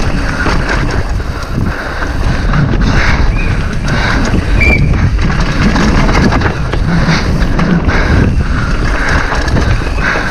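Downhill mountain bike riding fast over a rough trail, heard from a camera on the rider or bike: a constant clatter of frame, chain and tyres over rocks and roots, with many sharp knocks and wind rushing over the microphone.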